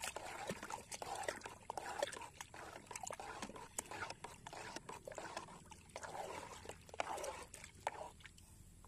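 Pesticide solution being stirred by hand with a stick in a black tub: the liquid sloshes and swishes, with scattered clicks. It stops near the end.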